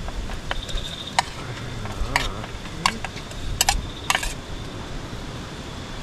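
Meat being tipped into a pot of boiling herb broth, with about six sharp clinks of a utensil against the pot over a steady low background.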